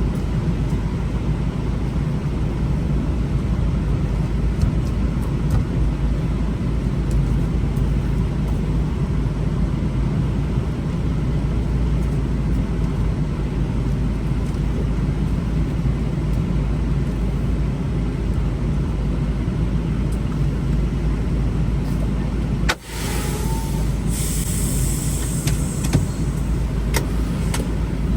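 Semi-truck running on the road, a steady low rumble, with a short hiss about two-thirds of the way through.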